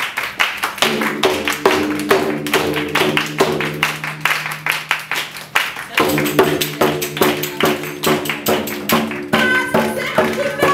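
A group clapping hands and stomping in a steady fast rhythm, about four beats a second. About a second in, a steady drone of several held tones joins the beat. It drops out briefly around six seconds and comes back.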